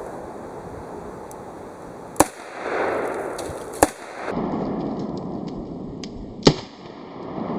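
Three sharp shots from a Ruger SP101 snub-nosed .357 Magnum revolver with a 2.25-inch barrel, the first about two seconds in, the next under two seconds later, the last over two seconds after that, each short with a brief ring.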